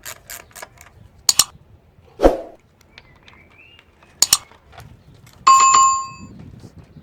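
A few scattered knocks and clicks, then a single loud bell-like metallic ding about five and a half seconds in that rings for under a second.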